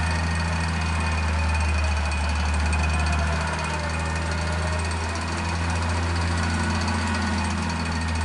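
An off-road vehicle's engine running steadily, low-pitched, with a rapid even pulse.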